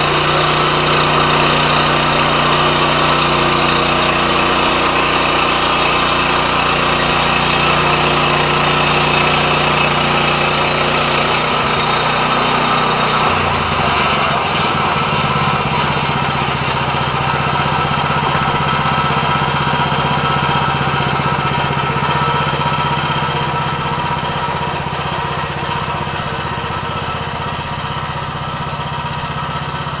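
Portable band sawmill running, its gas engine driving the band blade through a cedar log. Partway through, the pitch of the engine shifts, the high hiss fades and the sound gets a little quieter.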